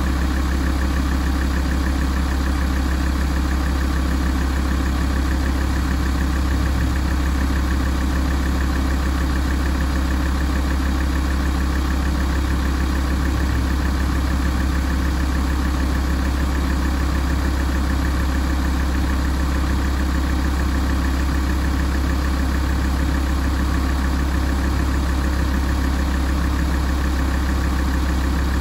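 Alfa Romeo 166 facelift's 2.4 JTDm five-cylinder common-rail diesel idling steadily while warming up, a constant low hum.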